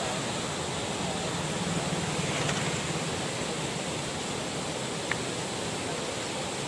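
Steady rushing of turbulent floodwater in a swollen river, an even, unbroken wash of noise, with one faint click about five seconds in.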